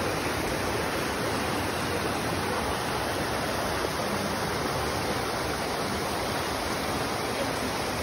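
Mountain stream rushing and splashing over boulders: a steady, unbroken rush of water.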